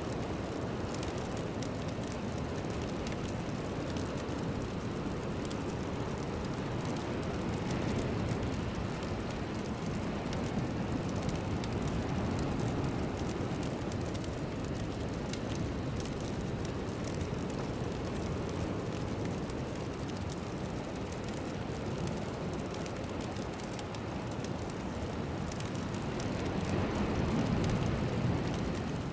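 A steady rushing noise with a low rumble and no clear tones, from an ambient meditation soundscape; it swells slightly near the end.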